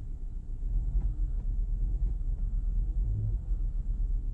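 VW Jetta MK6 engine idling steadily, heard from inside the cabin, running on a newly replaced throttle body.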